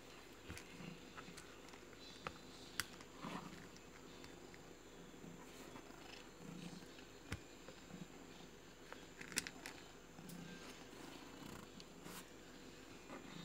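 Calico mother cat purring, a faint low purr that swells and fades about once a second, with scattered sharp clicks.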